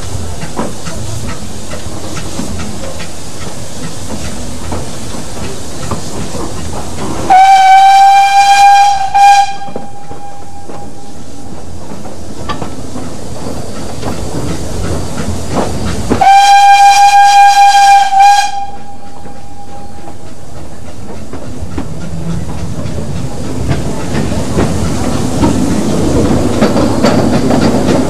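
Narrow-gauge steam locomotive's whistle sounding two long steady blasts, the first cut with a short extra toot, sounded for a whistle board. Under it runs the steady hiss and rail clatter of the moving train, which grows louder near the end.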